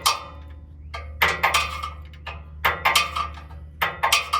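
Sharp metallic clinks of hand tools or metal parts being knocked together, in small clusters about every second and a half, each with a brief ringing tail, over a steady low hum.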